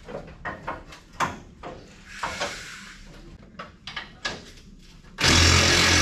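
Scattered clicks and light knocks of hands handling metal parts under a pickup truck. About five seconds in, a power tool starts running loud and steady.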